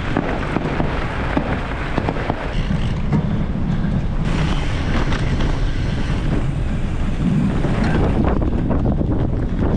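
Wind buffeting the microphone of a camera mounted on a mountain bike riding fast off-road, with a steady rumble of knobby tyres over dirt and grass and scattered small knocks from the bike.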